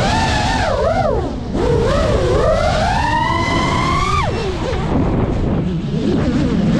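GEPRC Mark5 FPV quadcopter's brushless motors whining, the pitch swinging with the throttle. It dips about a second in, climbs steadily for a couple of seconds and drops sharply around four seconds in. A steady low rush of air sits underneath.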